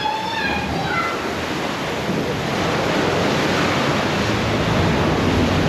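Ocean wave surging into a sea cave: a loud rushing wash of water that swells from about two seconds in.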